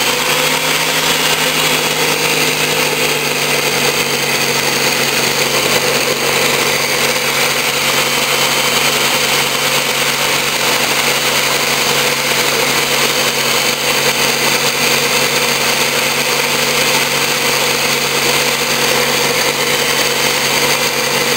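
Ninja Kitchen System 1200 blender's motor running steadily, its stacked blade chopping frozen fruit chunks in the 72-ounce pitcher. The fruit is clinging to the pitcher's sides, so the blade chops only the pieces at the bottom.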